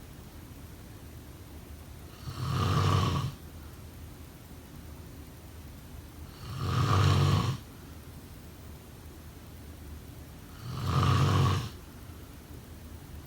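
A person snoring: three snores about four seconds apart, each lasting about a second, with a faint steady hiss between them.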